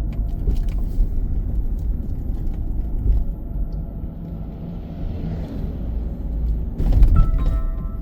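Road and engine rumble of a car driving, heard from inside the cabin. There is a sharp knock about seven seconds in, followed by a short electronic tone near the end.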